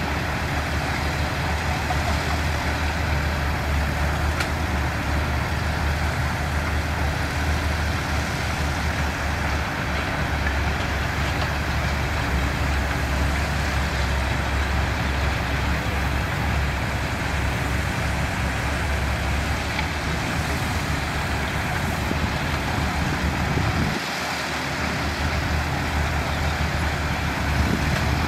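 Heavy diesel construction machinery running steadily with a low engine drone, and a brief drop in the low rumble about 24 seconds in.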